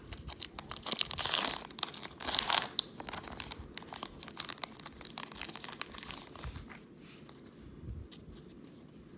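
A baseball card pack wrapper being torn open and crinkled by hand. The tearing is loudest in the first few seconds, then gives way to softer crinkling as the wrapper is handled and the cards are pulled out, and it fades near the end.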